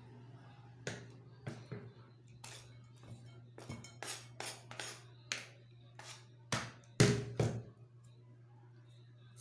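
Kitchen knife knocking and scraping on a wooden cutting board as red onions are chopped and scraped off the board: irregular short knocks, the loudest two about seven seconds in, over a steady low hum.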